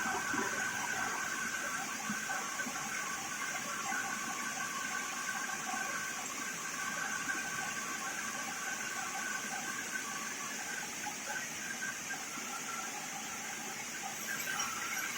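Double-cutting parallel vertical band sawmill running steadily: an even rushing noise with a constant high whine from the band blades.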